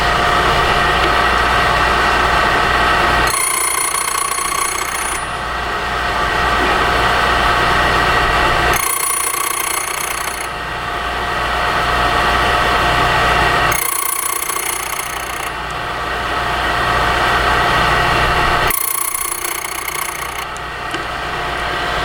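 Blitz key-cutting machine running steadily, with four spells of a higher-pitched cutting noise about five seconds apart as the cutter bites into the brass key blank, deepening the first four cut positions one depth while impressioning.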